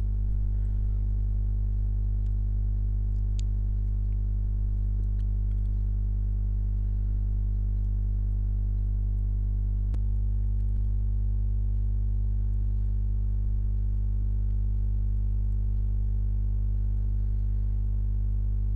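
Steady low machine hum with many evenly spaced overtones, unchanging throughout.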